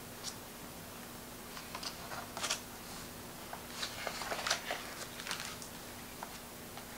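Paper pages of a hardcover picture book being turned by hand: a run of soft rustles and crisp paper flicks, busiest in the middle, then quiet.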